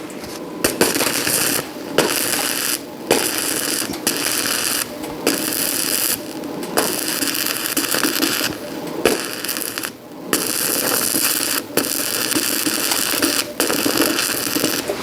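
Electric arc welding crackling and sizzling on the steel roof frame, in a series of short welds of a second or two each, stopping and restarting abruptly.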